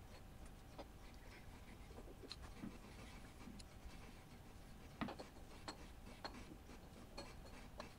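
Faint, irregular ticks, roughly one every half second to a second, from a shaping tool with a parting insert, held in the quill of a Thiel Duplex 158 milling machine, cutting a slot in cast iron.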